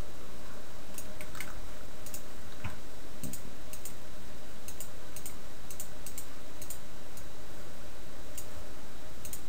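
Computer keyboard and mouse clicks: scattered short, sharp clicks at an irregular pace, over a steady background hiss with a faint hum.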